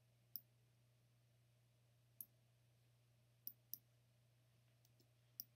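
Computer mouse clicking about five times at irregular intervals, two clicks in quick succession midway, over a faint steady low hum.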